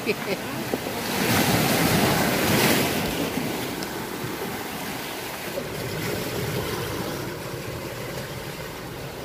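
Sea surf washing onto the shore, swelling loudest from about one to three seconds in, then settling to a steady wash.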